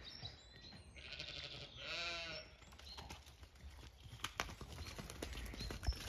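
A sheep bleats once, a faint wavering call about two seconds in. From about four seconds in, a pony's hooves trot on wet, muddy ground, getting louder as it comes closer.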